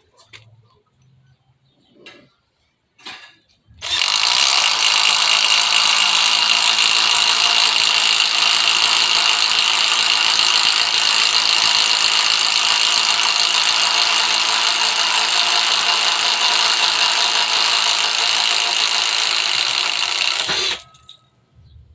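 Cordless impact driver running under the trigger for about seventeen seconds, starting about four seconds in and cutting off abruptly near the end. A few light clicks come before it starts.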